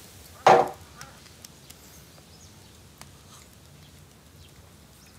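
A person's short vocal grunt, falling in pitch, about half a second in; then quiet room tone with a few faint ticks.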